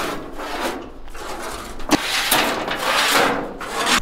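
Steel trailer frame being shifted by hand on asphalt: repeated scraping, rolling swells with one sharp knock about two seconds in.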